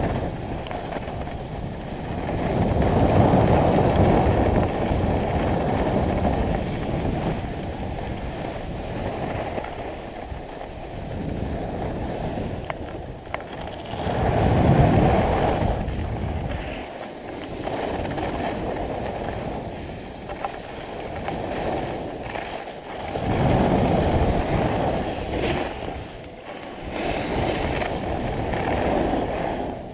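Rushing wind buffeting the microphone of a skier's action camera during a downhill run, swelling and fading several times as speed changes, with the skis scraping over the packed snow beneath it.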